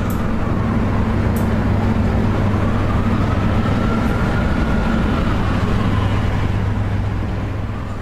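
Steady, loud mechanical rumble of the engine-or-traffic kind, with a faint higher tone that slowly rises and falls.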